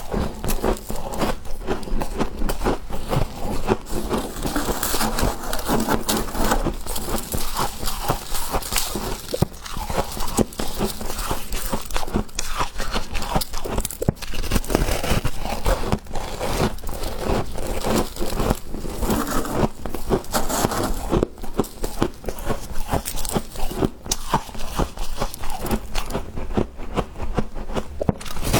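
Freezer frost being bitten and chewed close to the microphone: dense, irregular crunching and crackling with no pauses.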